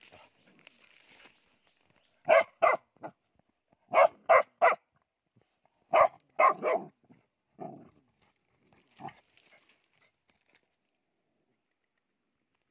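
A dog with its head down a burrow gives short, hard huffs into the hole. They come in quick runs of two or three about every two seconds and trail off to single weaker ones.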